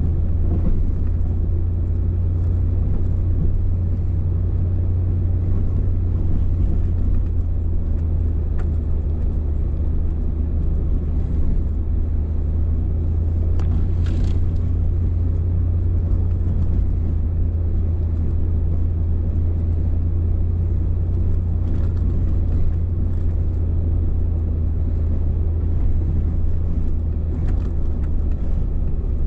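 A truck's engine and tyres heard from inside the cab while driving slowly along a snow-covered road: a steady low drone.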